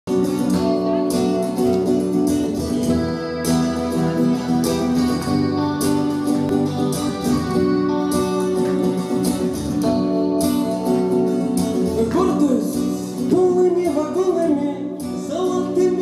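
Live song intro on an acoustic-electric guitar and an electric guitar, strummed chords over a steady pulse. About twelve seconds in, a sliding, bending melody line comes in on top.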